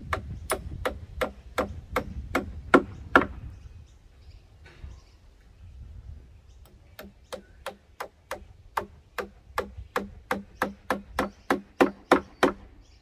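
A hammer nailing into the edge of a timber pallet: a run of about nine even blows, roughly three a second, a pause of about three seconds, then a longer run of about sixteen blows that grow louder toward the end.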